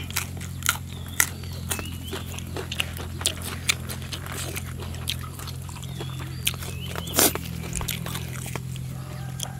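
Close-miked chewing and crunching of a crisp raw green vegetable, many short crunches with a louder one about seven seconds in, over a steady low hum.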